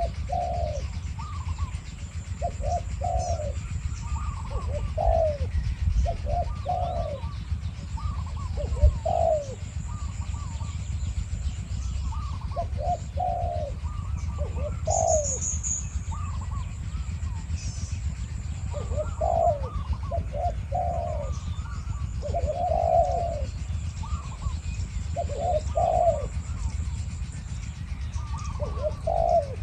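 Spotted doves cooing back and forth, short phrases of a few coos repeated every second or two: a wild dove answering a caged decoy bird. A faint high steady whine sits over it, with a brief high chirp about halfway through.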